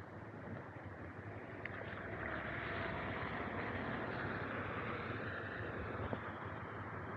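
A car passes on the rain-soaked road, its tyres hissing through standing water. The hiss swells from about two seconds in and eases off near the end, over the steady noise of rain.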